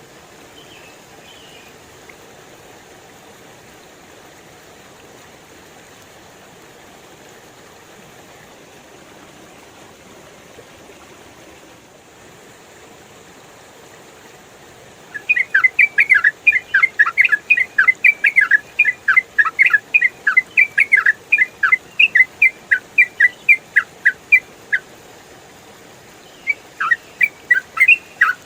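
Yellow-vented bulbul (trucukan) singing a fast, continuous run of bubbling chirps, starting about halfway in. It breaks off briefly and resumes near the end. Underneath is a steady hiss of running water.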